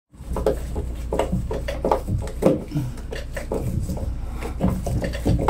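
Handling noise: scattered light knocks, clatter and rubbing, over a steady low hum.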